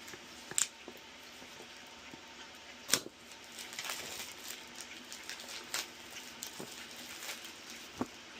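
Hands opening product packaging: a few sharp taps or clicks, the loudest about three seconds in, and a stretch of scraping and rustling of cardboard and plastic in between.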